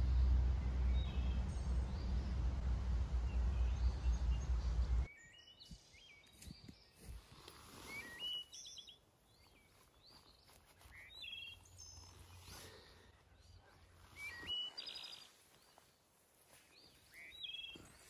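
Small forest birds giving short, high chirping calls every few seconds. A loud low rumble covers the first five seconds and cuts off abruptly.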